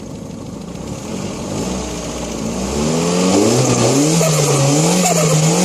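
Turbocharged car engine revving: its pitch climbs and it gets louder about three seconds in, then rises and falls repeatedly.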